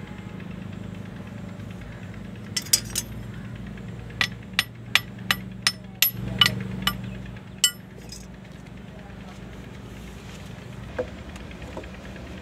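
A small hand tool tapping on a diesel engine's piston and cylinder liner, in sharp metal taps: three a little over two seconds in, then a run of about ten at roughly three a second, with one fainter knock near the end. A steady low hum runs underneath.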